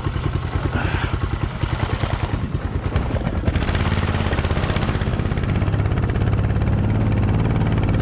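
PPF mud motor's small gas engine running with distinct, regular putting firing beats, then throttled up about three seconds in to a louder, steadier running note as the layout boat gets under way.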